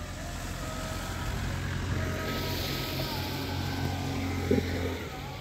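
Road traffic passing on a wet road: a bus's engine drones steadily under a tyre hiss that swells in the middle, and a motorbike comes up near the end. A short knock sounds about four and a half seconds in.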